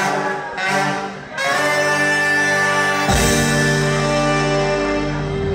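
Ska band's horn section of saxophones, trumpets and trombones playing live: two short chords, then a long held chord from about a second and a half in. The rest of the band comes in about three seconds in.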